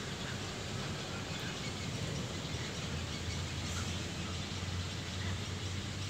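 Open-air ambience: a steady low hum with faint, scattered bird chirps now and then.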